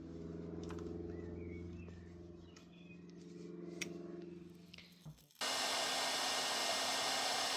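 The 1929 Bugatti Type 43A's electric horn sounding in a long, steady buzzing note for about five seconds, working again now that a jumper cable bridges the steering column and the steering box. A loud, even hiss then cuts in suddenly and stops abruptly.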